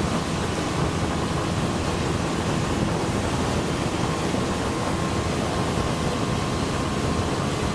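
Small open motorboat running steadily across open water: a constant engine drone under rushing wind and water noise.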